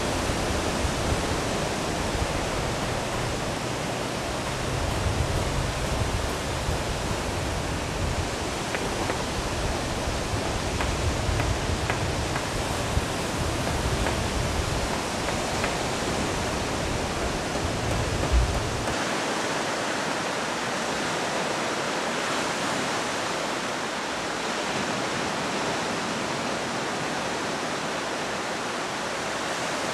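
Ocean surf breaking and washing on a beach, a steady rushing noise. A low uneven rumble runs under it and cuts off suddenly about two-thirds of the way through, leaving only the steady wash of the surf.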